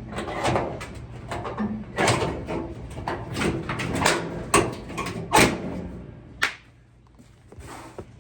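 Irregular clanks, knocks and scrapes of sheet-metal dryer panels and parts being handled, with a sharp click about six and a half seconds in and a quieter stretch near the end.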